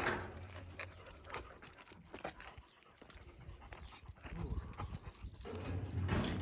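A dog panting, with scattered light clicks.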